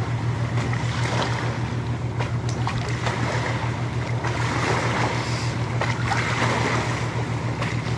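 A steady low engine-like hum with an even pulse, under a continuous hiss of wind and water, with a few faint clicks.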